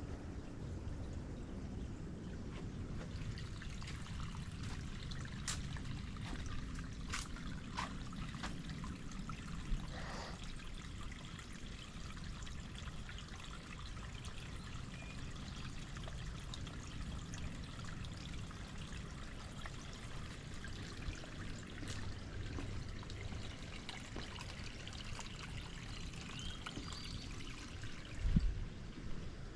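Small stream trickling steadily, with a few faint clicks early on.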